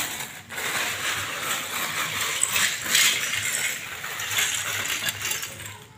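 Loose plastic Lego bricks clattering against each other and the hard floor, a continuous jumble of small clicks that is loudest about halfway through.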